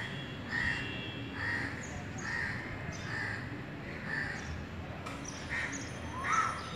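A crow cawing over and over, a steady series of short harsh caws roughly one a second.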